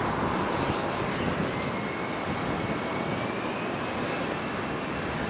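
Aircraft engine noise: a steady roar with a faint whine that rises slowly in pitch.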